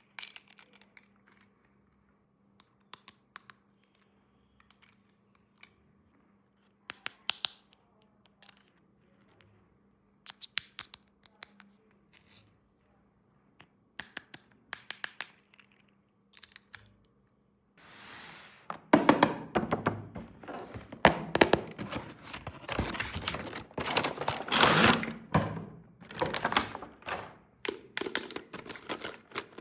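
Small plastic toy pieces and packaging being handled by hand: scattered light clicks and taps at first, then about eighteen seconds in, a dense run of rustling and clicking that is much louder.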